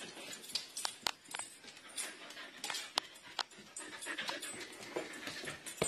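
Husky panting and snuffling right at the phone's microphone, with scattered sharp clicks and knocks.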